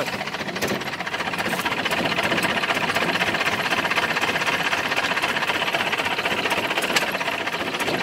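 An engine running steadily with a fast, even rhythm.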